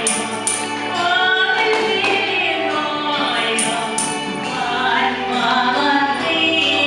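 A woman singing into a handheld microphone over amplified backing music with sustained chords and a few light high percussion ticks.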